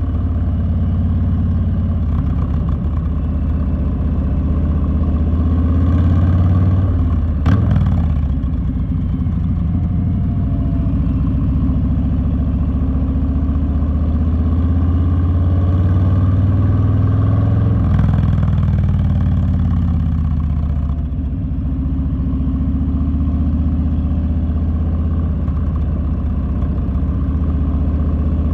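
Harley-Davidson Street Bob's V-twin engine running steadily while riding. The engine note dips briefly with a sharp click about seven and a half seconds in, and changes briefly again about eighteen seconds in.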